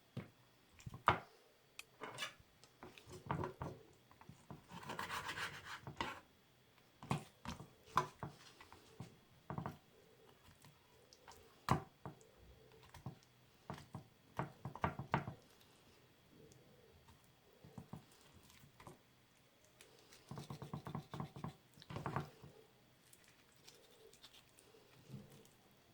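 A knife cutting and scraping meat off a raw chicken leg bone, with irregular taps and clicks and a few longer scraping stretches.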